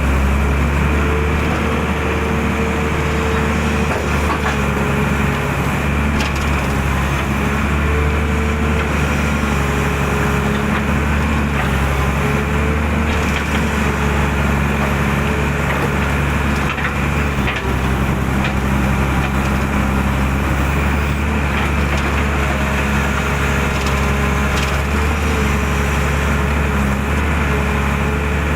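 Excavator's diesel engine running steadily under working load, its pitch wavering slightly as the hydraulics work the arm and bucket.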